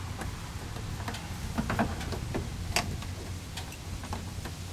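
Irregular light clicks and taps of a hand tool and small metal hardware as the splash guard's bottom nut is worked loose and unscrewed, over a low steady background hum.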